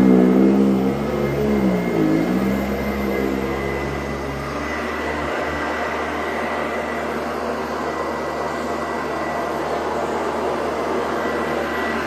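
Sanitaire SC886 commercial upright vacuum cleaner running steadily over carpet: a motor hum with a high, steady whine. The motor's pitch dips and recovers about two seconds in, then holds steady.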